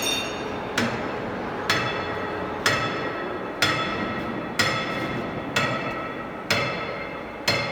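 Metal being struck with a hammer about once a second, eight blows, each ringing briefly, over a steady background noise.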